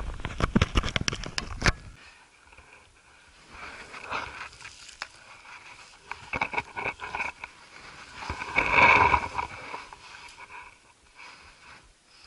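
Close handling noise from a hiker scrambling on limestone: clothing and backpack rubbing, with rapid clicks and scrapes for the first two seconds. After that come quieter scrapes of hands on rock and loose gravel, and a louder rush of rustling about nine seconds in.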